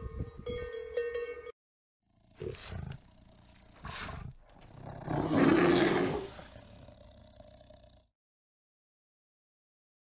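Cowbells ringing briefly, then after a short break a brown bear growls: two short growls, then one longer, louder roaring growl that fades away.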